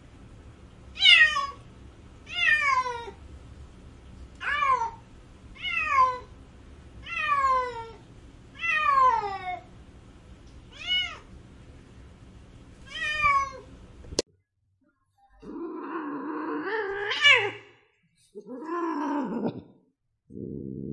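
A Scottish Fold cat meowing about eight times in a row, one short meow every second and a half or so, each falling in pitch. After an abrupt cut, two longer, rougher calls follow.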